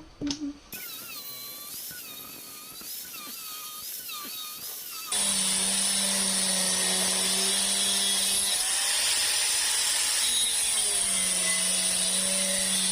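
A quiet stretch with a faint wavering tone, then about five seconds in an electric power tool switches on and runs at speed with a loud, steady whine, its pitch wavering a little midway.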